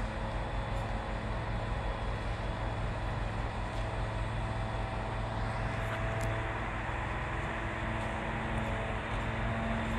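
Aerial platform fire truck's engine running steadily while the raised boom and platform are moved, a constant low drone with a hum underneath. A little more hiss comes in about halfway through.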